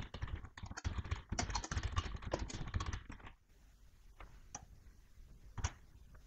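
Typing on a computer keyboard: a quick run of keystrokes for about three and a half seconds, then a few single clicks spaced apart.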